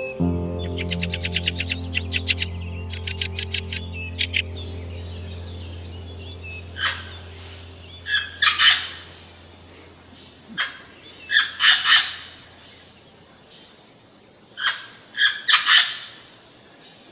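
Bird calls: a fast trill of about eight notes a second in two bursts over the first four seconds, then short harsh calls in clusters of two or three every few seconds. A low drone of background music fades out over the first half.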